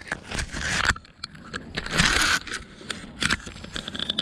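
Catfish croaking as it hangs from the angler's grip: rasping, crackly grating in two longer spells, then a few short clicks.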